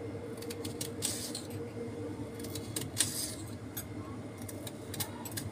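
Kitchen knife slicing a peeled raw potato into long strips on a hard countertop: irregular crisp cuts and taps of the blade, the sharpest about three seconds in, over a steady low hum.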